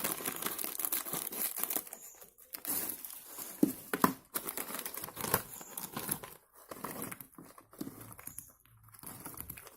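Plastic Ciki GP1000 snack packet being opened and handled by hand, crinkling in irregular crackles.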